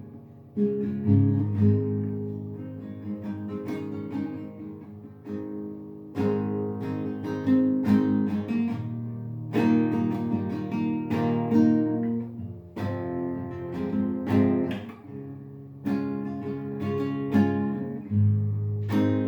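Acoustic guitar playing a slow piece, chords struck every second or two and left to ring.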